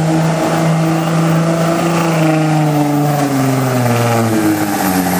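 Dodge Ram's Cummins straight-six turbo-diesel at full throttle, hauling a pulling sled. Its note holds steady, then sags slowly as the load builds, and picks back up shortly before the end.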